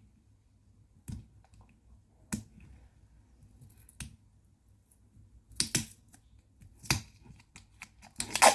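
A roll of clear adhesive tape being handled: a few sharp clicks, then short noisy pulls of tape off the roll, the last and loudest near the end.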